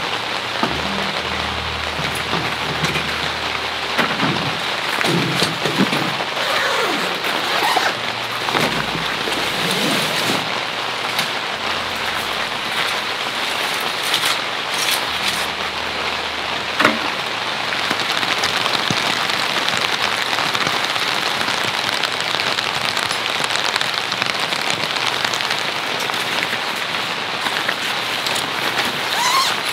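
Steady rain falling on a surface, with many separate drop hits and one sharper drip about halfway through.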